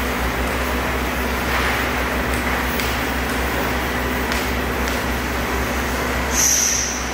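Hydraulic power pack running steadily: its electric motor and pump hum as they drive the pusher's cylinders through the flow control valve. Near the end there is a brief, high-pitched hiss.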